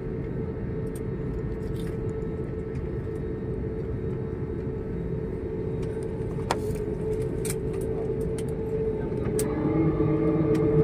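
Airliner cabin noise during the landing roll, with the ground spoilers up: a steady jet-engine hum over a rumbling roar, with a few light rattles. Near the end a deeper steady hum joins in.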